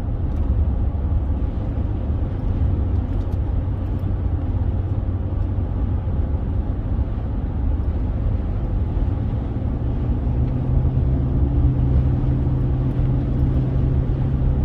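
Car interior noise while driving: the engine and tyres on the road make a steady low rumble, and a low drone grows louder about ten seconds in.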